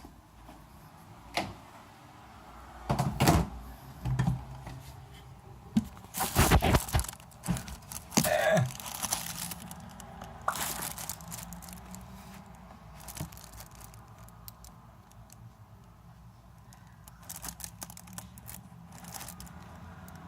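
Handling and moving noise: a string of knocks, thumps and rustles, heaviest in the first ten seconds, then a few light clicks near the end.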